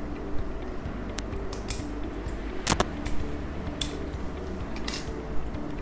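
Small clicks and ticks of the Honor 10's disassembled logic board and metal shield covers being handled between the fingers, with one sharp double click a little under three seconds in, over a low steady hum.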